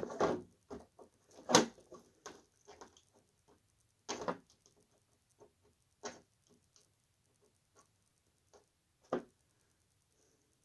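Hands handling the hard plastic body shell of an RC off-road truck: scattered clicks and light knocks, the louder ones a few seconds apart.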